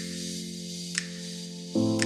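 Background music: sustained chords with a light tick about once a second, moving to a new chord near the end.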